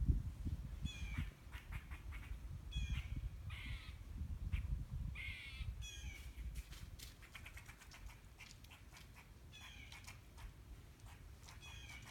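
A bird in the trees giving short, harsh, falling calls, singly and in pairs, with a lull in the middle. A low rumble of wind on the microphone runs underneath.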